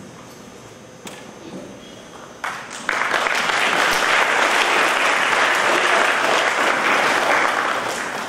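Audience applauding. The clapping starts about two and a half seconds in, quickly swells to a full, steady applause, and dies away at the very end.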